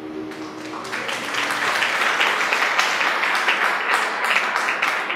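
The last held chord of the song dies away in the first second, and then audience applause builds and carries on, dense and steady.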